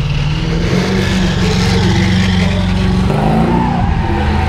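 Engine of a drifting car held at high revs, with the hiss of tyres sliding on tarmac over it; the engine note shifts a little past three seconds in.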